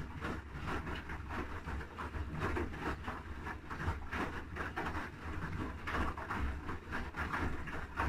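Haier I-Pro Series 7 front-loading washing machine tumbling a wash load: a steady low hum from the drum drive under irregular surges of water and wet laundry sloshing and splashing in the drum.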